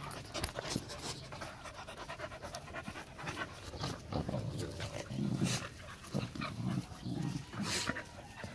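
Four-month-old Rottweiler puppies panting as they play and scramble, with short scuffling and rustling noises throughout.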